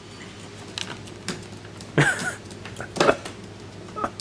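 A plastic treat bag crinkling and light knocks on a wooden tabletop while a small pet quail is hand-fed, with sudden louder sounds about two and three seconds in and a short high peep near the end.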